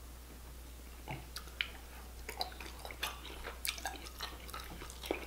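Soft, wet chewing and mouth clicks of a person eating seafood close to the microphone.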